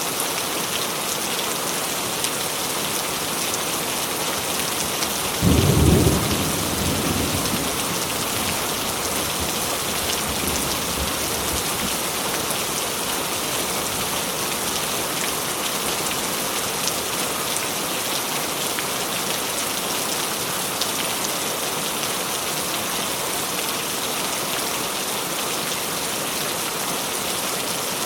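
Steady heavy rain. A single thunderclap comes about five and a half seconds in, the loudest sound, and rumbles away over the next couple of seconds.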